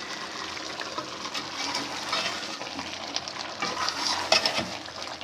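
Chicken masala sizzling in a karahi as the liquid cooks off, with a spoon stirring and scraping against the pan now and then, the scrapes busiest about two and four seconds in.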